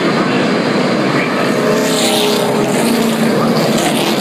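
NASCAR stock cars' V8 engines at racing speed as the pack passes close by: a loud, steady engine noise, brightening about halfway through as a car goes past.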